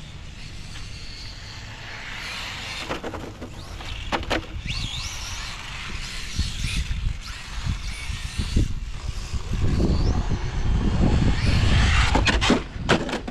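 Electric 1/10-scale RC F1 cars running on a track: high-pitched motor whine that rises and falls as they accelerate and brake, over a low rumble that grows loudest near the end as a car passes close.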